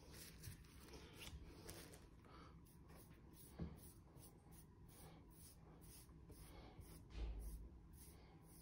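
Faint, repeated swishing of a paintbrush stroking wet acrylic paint across a toilet seat lid, about three strokes a second. A soft knock a little past three seconds in and a low bump about seven seconds in.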